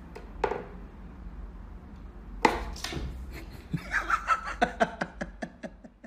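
Sharp knocks from a wooden whack-a-mole cat toy, one early and two close together in the middle, as the cat bats at the popping-up ball. Then a person laughs in quick repeated pulses over the last couple of seconds, fading out.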